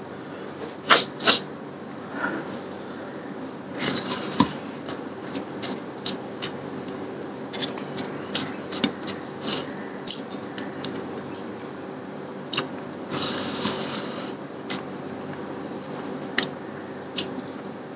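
Eating by hand: fingers mixing rice and snail curry on a plate, with chewing and mouth noises heard as many short clicks and smacks. Two longer noisy stretches come about four seconds in and again past the middle.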